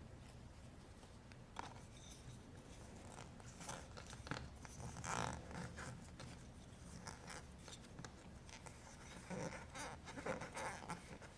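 Faint scraping and rustling of hands handling Play-Doh and plastic stamper toys, in scattered short bursts.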